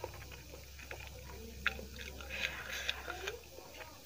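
Close-miked eating sounds: fingers mixing rice and dal in a steel plate, with wet squishes and small clicks of fingers against the metal, alongside chewing.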